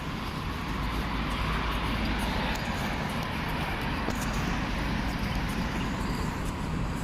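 Steady vehicle noise: a low rumble under an even hiss.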